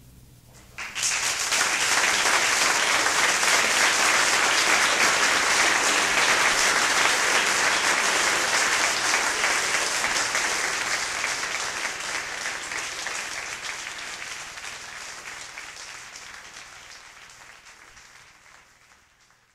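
Concert audience applauding after a trombone ensemble piece. The clapping breaks out suddenly about a second in, holds steady, and then fades out gradually over the last several seconds.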